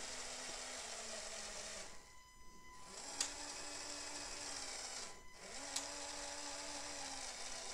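Small LEGO Powered Up electric motor whirring through its gearing as it drives a semaphore signal arm, set going from a phone app. It runs three times, each run cut by a short pause, and gives a sharp click about three seconds in and again near six seconds.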